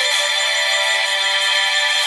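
A Samsung Galaxy J7 Star ringtone playing: a steady stream of bright musical tones with no bass.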